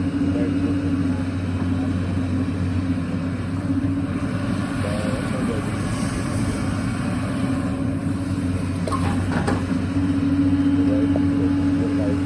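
Excavator's diesel engine running steadily under work, with a brief cluster of sharp knocks about three-quarters of the way through.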